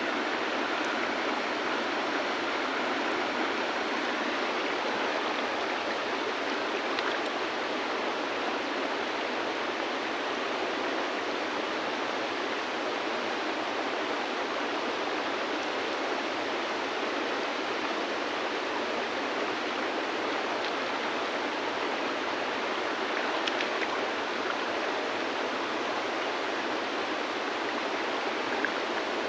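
River water flowing over stones: a steady, even rushing, with a few faint light clicks here and there.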